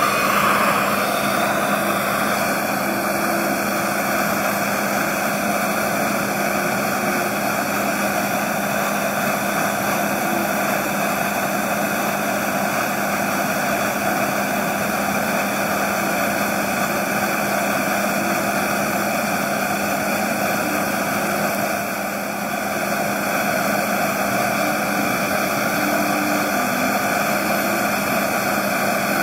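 Steady rushing noise of a gas burner heating a steel-pipe crucible of scrap lead from below, with a constant low hum under it; the level dips slightly for a moment about three-quarters of the way through.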